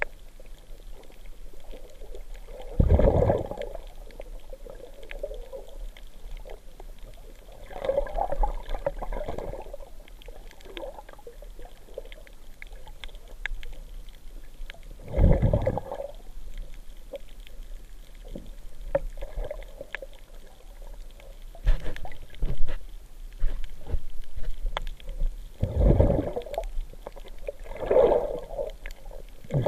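Water recorded underwater: muffled sloshing and gurgling, with several louder surges a few seconds apart and scattered small clicks between, over a low steady hum.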